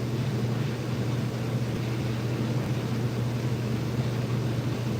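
Steady low mechanical hum of a running motor or pump, even and unchanging.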